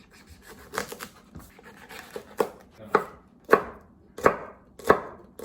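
Kitchen knife chopping food on a cutting board, about eight strokes a little over half a second apart, growing louder and more regular.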